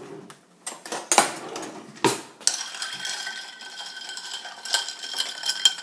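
Metal spoon stirring ice water in a glass jar, clinking quickly against the glass and the ice, with ringing from the glass. Two sharp knocks come in the first two seconds, before the stirring settles in.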